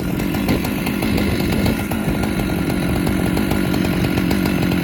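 Husqvarna chainsaw engine running steadily at an even pitch.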